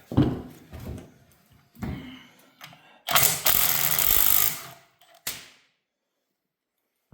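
Tools clinking against the engine, then a power tool fitted with a socket runs for about a second and a half and once more briefly, backing out a bolt.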